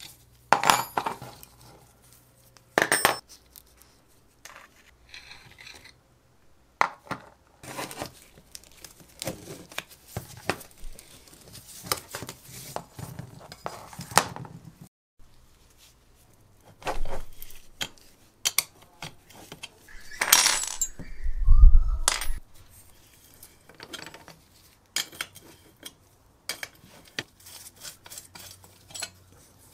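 Spanner and pliers clinking and knocking on the rusty axle nuts and steel parts of a vintage child's bicycle as it is dismantled, with metal parts set down on a wooden bench, in scattered sharp knocks. A heavier low thump about two-thirds of the way through is the loudest sound.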